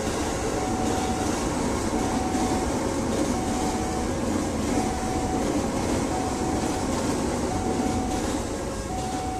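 JR 205 series electric commuter train passing close by at speed, a steady rush of wheel and car noise. Over it, a level-crossing warning alarm sounds two alternating tones, high then low, about once a second. The train noise eases near the end as the last cars pass.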